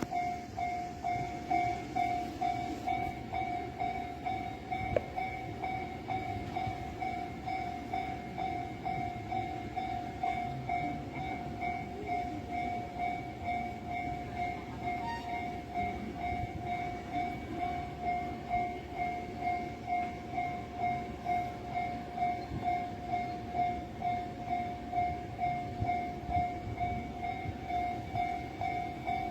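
Japanese railway level-crossing warning bell dinging in a steady, even repeat while the crossing is down, with a train rumbling past under it.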